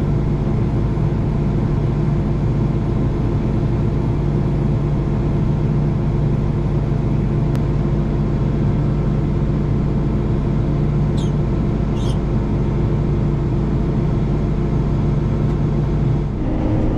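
Combine harvester running steadily while cutting soybeans: a continuous low engine drone that shifts slightly near the end.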